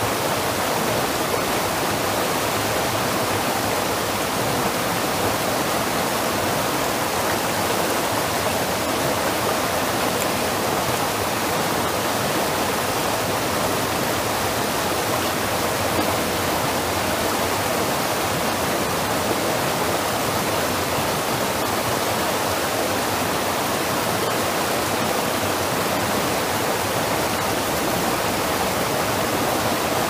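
Steady rush of a small creek waterfall, water tumbling over rocks.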